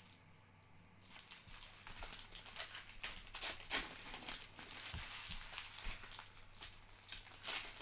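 Plastic trading-card pack wrappers crinkling and tearing as packs are opened and handled, with a run of crackling that starts about a second in.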